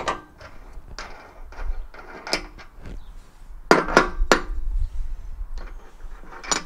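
Metal tools and parts clinking and knocking, a series of sharp separate strikes with a short ring. Three louder knocks come close together about four seconds in.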